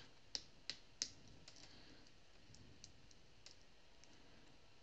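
Faint, irregular small clicks and taps of a clear mould holding UV-resin cover-minder pieces being picked up and handled, the sharpest few in the first second.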